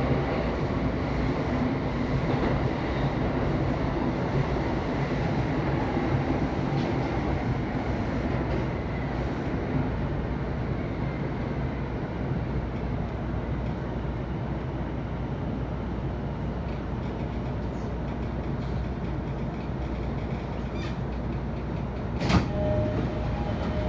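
Cabin noise of a JR Saikyō Line E233-series commuter train on its approach to a station: a steady rumble of wheels on rail and running gear, easing slightly as the train slows, with a sharp clack near the end.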